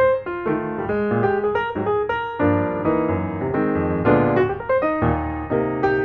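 Background piano music: single notes in a melody over chords, struck and left to ring.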